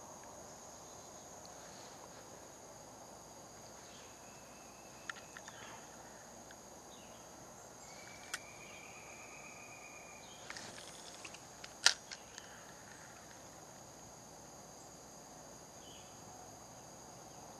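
Insects droning steadily in a high-pitched ring, with a few sharp clicks and knocks. The loudest click comes about twelve seconds in.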